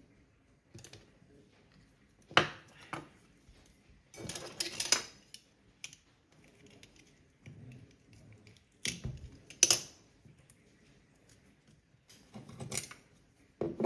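Small hard objects clicking and clattering as tools and parts are handled on a workbench: a few single sharp knocks, with a short run of clatter about four seconds in.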